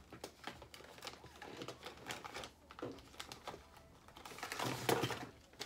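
Foil sheet-mask packets crinkling and rustling as they are handled and shuffled through, with scattered light clicks and taps.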